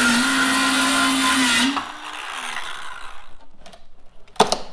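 Ryobi circular saw cutting through plywood, its motor holding a steady tone, then released about a second and a half in and spinning down. A few sharp knocks near the end.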